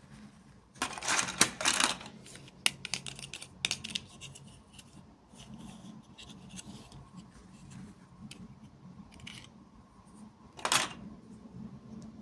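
Unboxing handling sounds: packaging rustling and scraping in two bursts about a second in, a scatter of sharp clicks and taps, and another short rustle near the end.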